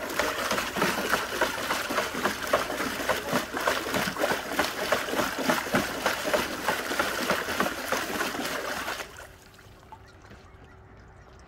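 A husky splashing about in a shallow plastic tub of water, a busy run of irregular splashes that stops suddenly about nine seconds in.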